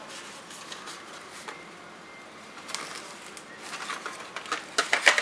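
Hard plastic parts tray holding new exhaust valves being handled: quiet at first, then light clicks and rattles that come more often near the end.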